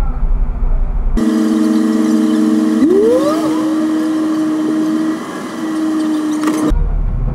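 Vehicle running, with a steady hum of several held tones and a brief rising rev about three seconds in. The hum starts about a second in and cuts off abruptly near the end.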